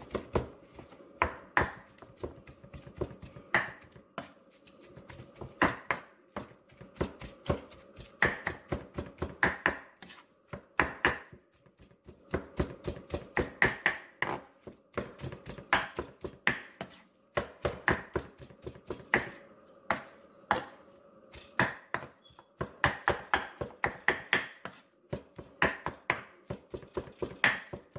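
Kitchen knife chopping soft boiled beef tongue on a wooden cutting board: quick runs of sharp knocks of the blade on the board, with short pauses between runs.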